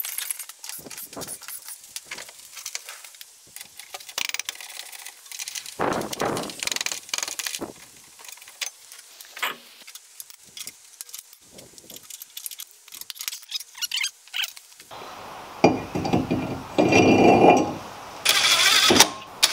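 Clinks, taps and knocks of hand tools and metal brake parts being handled while the wheel and brake hardware come off and the new rotor goes onto the hub. The clatter grows louder and busier in the last few seconds.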